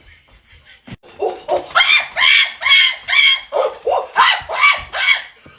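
A rapid series of about ten short, high-pitched yelps, each rising and falling in pitch, like a small dog yapping.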